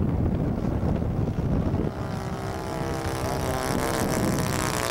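Wind buffets the microphone for the first two seconds. Then the model Cessna's Saito four-stroke engine comes in, a steady propeller drone whose pitch shifts as the plane passes close overhead.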